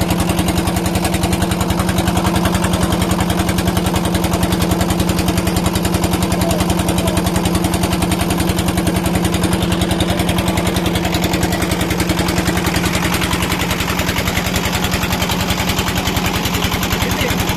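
A small engine running steadily at a constant speed, loud and close, with a fast, even pulsing beat that does not change.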